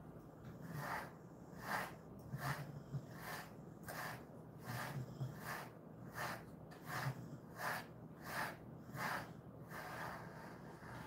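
Pet grooming brush drawn through a Jindo mix dog's chest fur in repeated strokes: a soft, scratchy swish about every three-quarters of a second.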